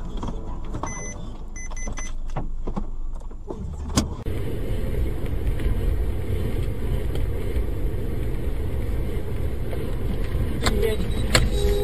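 Car driving on a snow-covered road, with its engine and tyres making a steady low rumble heard from inside the cabin. In the first few seconds there are a few knocks and several short high beeps.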